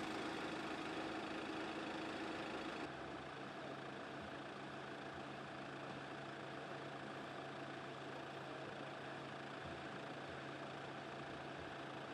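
Vehicle engine idling steadily, with a constant low hum. About three seconds in, the sound drops abruptly to a quieter, steady hum.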